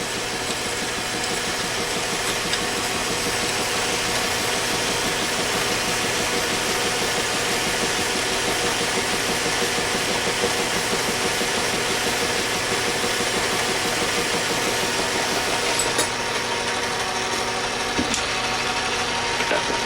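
Metal lathe running steadily with a hand-ground tool bit cutting a scrap metal workpiece, peeling off chips: a continuous machine hum made of several steady tones.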